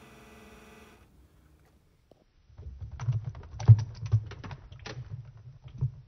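A toy washing machine's small motor hum fades out within the first second. About two and a half seconds in, a run of irregular plastic clicks and knocks with low thumps starts and continues to the end: the toy machine being handled.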